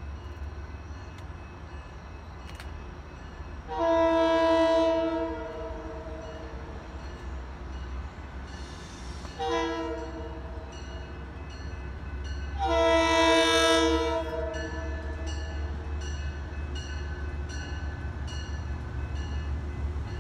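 Approaching Metro-North commuter train sounding its horn in three blasts: long, short, long. After the last blast a bell rings about twice a second over a steady low rumble.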